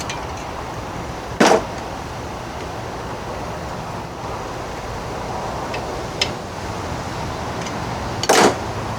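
Two sharp knocks, about a second and a half in and again near the end, with a few faint ticks between, over a steady low hum. The knocks come from a 1977 Evinrude 15 hp outboard's lower unit being handled while it is fitted back onto the midsection.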